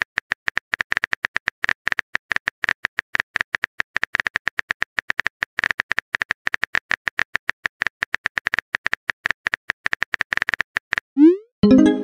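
Phone keyboard typing clicks, a quick run of taps several a second as a text message is typed out letter by letter. Near the end comes a short rising whoosh as the message is sent, then a brief pitched pop.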